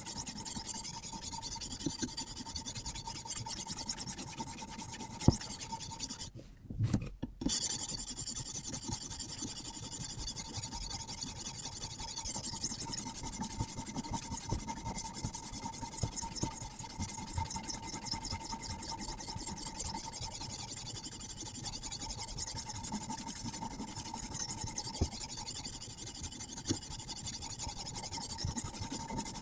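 Sharpening stone on a guided-rod sharpening system scraping back and forth along a carbon steel bushcraft knife blade in rapid, continuous strokes, with a brief pause about six seconds in.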